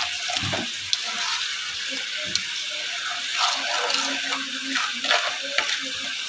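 Tomato-onion masala gravy sizzling in a nonstick frying pan on a raised flame as it is stirred with a spoon, with a few light clicks of the spoon against the pan.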